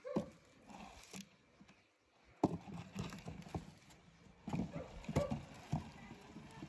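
Toy monster truck rolling down a ramp of wooden craft sticks and grit, its plastic wheels giving a scatter of faint clicks, knocks and scrapes.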